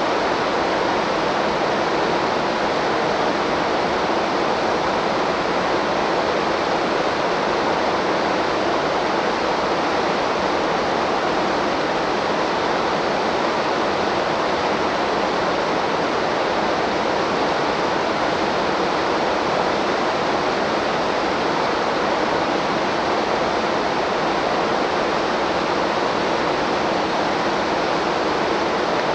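Waterfall pouring into a river: a steady, unbroken rush of falling water.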